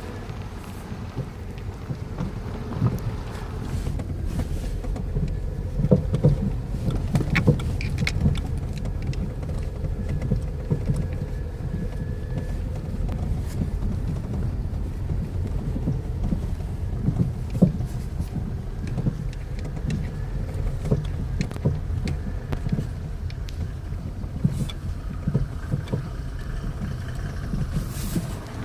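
Second-generation Kia Rio (JB) driving over uneven road: a steady low road rumble with irregular sharp knocks from the suspension. The owner takes the knocking for worn anti-roll bar (stabiliser) bushings and control arms.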